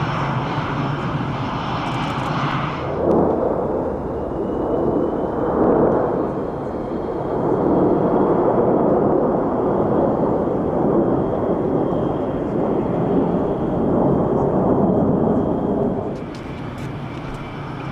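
Swiss Air Force F/A-18 Hornet's twin turbofan jet engines running with a high whine as it taxis. After an abrupt cut about three seconds in, military jets flying in formation overhead make a broad roar that swells and fades in waves. The roar drops back near the end.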